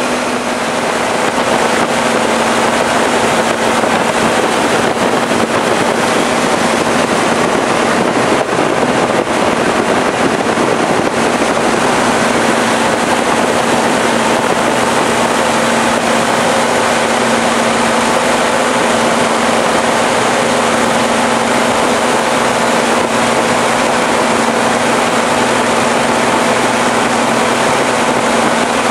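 Light propeller aircraft in flight: a steady engine and propeller drone with a constant hum and rushing air noise, unchanging throughout.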